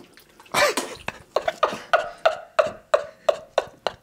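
A person laughing hard in rapid, breathy bursts, about three a second, starting about a second in after a single louder burst.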